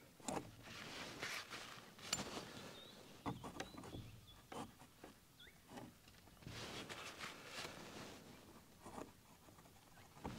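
Palette knife scraping across a painting panel, spreading thick paint in several strokes of a second or so each, with short pauses and a few light clicks between them.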